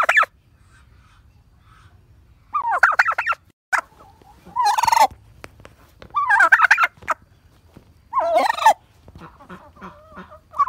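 Quail calling: a series of about five short, warbling calls, each under a second long, repeated every one and a half to two seconds. A faint low hum runs underneath.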